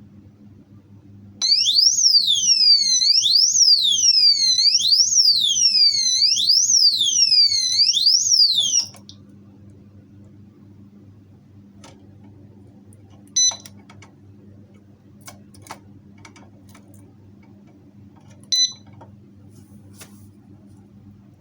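Motorcycle disc-lock alarm sounding a loud wailing siren that sweeps repeatedly up and down in pitch for about seven seconds, then cuts off suddenly. Later it gives two short high beeps about five seconds apart, with a few faint clicks between.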